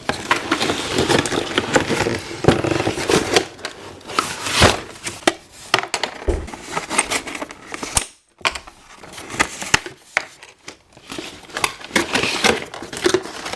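Toy packaging being opened and handled: crinkling plastic and cardboard, with scattered clicks and knocks of small plastic toy pieces.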